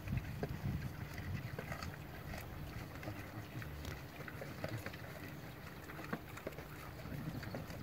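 Javelinas feeding: scattered small crunching clicks of chewing and rooting over a low steady rumble.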